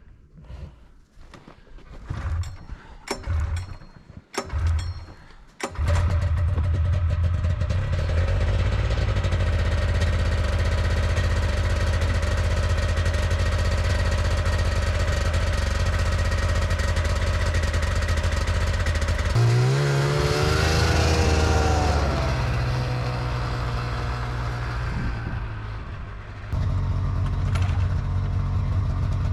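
Snowmobile engine being started: a few short cranking attempts, then it catches about six seconds in and runs steadily. About twenty seconds in it is revved up briefly, then drops back and keeps running.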